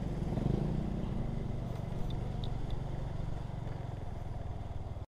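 Motorcycle engine running steadily while riding, a little louder in the first second. Three faint short high beeps sound about two seconds in.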